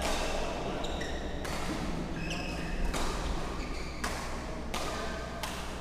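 Badminton rackets striking shuttlecocks: a string of sharp hits, roughly one every second or faster, each ringing on briefly in a large echoing sports hall.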